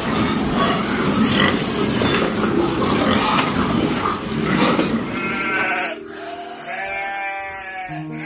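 A pen of pigs grunting and squealing in a dense, noisy clamour. About two-thirds of the way through it gives way to goats bleating in long, wavering calls.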